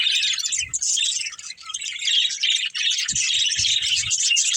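Budgerigars chirping and chattering continuously, many overlapping high chirps, with a few soft low thumps about three seconds in.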